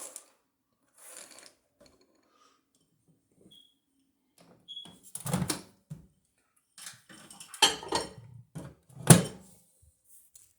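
Handling noise: a run of knocks and clatter of small hard objects being moved and set down, loudest about halfway through and near the end. Two short, faint high beeps come in between.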